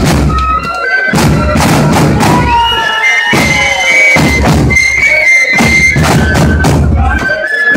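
Marching bass drum struck hard with a swung stick, beating out a heavy rhythm under a high melody played on wind instruments.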